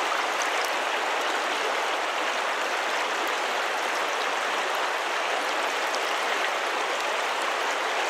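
Creek water rushing past in a steady, even wash.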